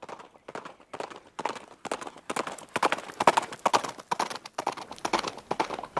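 Horse's hooves clip-clopping in a walking rhythm, growing louder and quicker from about two seconds in.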